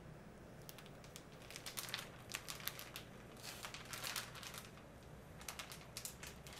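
Faint crinkling of a clear plastic zip-top bag being handled, in a string of light, irregular crackles.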